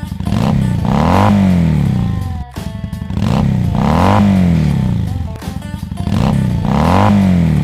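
Electric miter saw run three times in quick succession, cutting through a stack of three wood pickets set against a stop jig. Each run lasts about two and a half seconds, with the motor's pitch rising and then falling.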